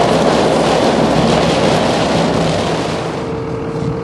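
A vehicle running under a loud, steady rushing noise. The rushing eases about three seconds in, and a steady hum comes up.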